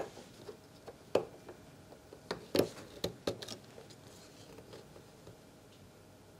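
A few sharp clicks and taps, bunched about one to three and a half seconds in, from hands working a small part on a 3D printer's frame to free the belt.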